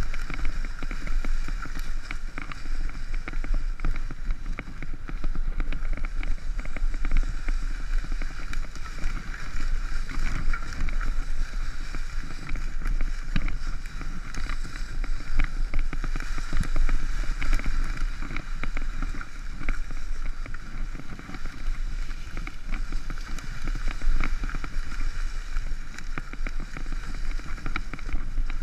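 Mountain bike riding down a dirt trail, heard from a camera on the rider: a steady rush of tyres on dirt and wind, with many small rattles and knocks from the bike over the rough ground.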